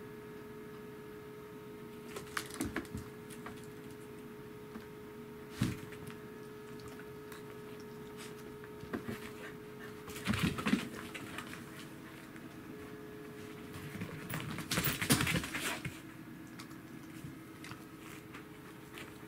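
Pembroke Welsh corgi panting in several short bouts, with a sharp knock about five seconds in, over a faint steady hum.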